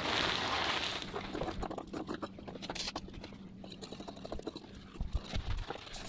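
A burst of hiss in the first second, then scattered light clicks and taps from hands and tools working fiberglass cloth, over a faint steady hum.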